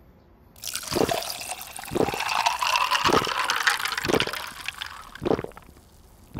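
Someone gulping down a drink from a bottle: a steady gurgle of pouring liquid with a loud swallow about once a second, starting about half a second in and fading near the end.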